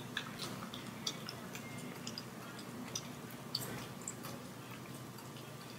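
Siberian husky chewing close to the microphone: irregular clicking smacks of jaws and tongue, about three or four a second, over a faint low hum.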